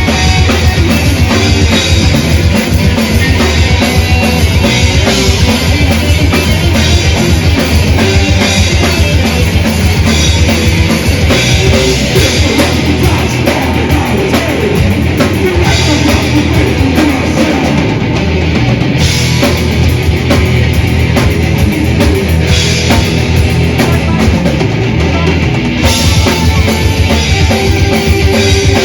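Live death/thrash metal band playing at full volume: distorted electric guitars and bass over fast, dense drumming.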